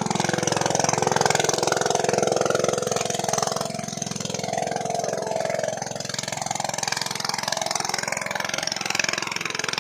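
A small engine running steadily at idle, an even drone.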